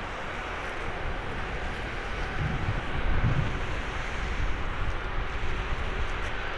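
Boeing 737-800's CFM56-7B jet engines running with a steady roar, with gusts of wind buffeting the microphone about two and a half to three and a half seconds in.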